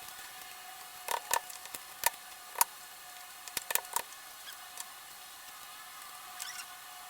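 Knife knocking on a cutting board as chicken is cut up: irregular sharp knocks, some in quick pairs, over a faint steady hum.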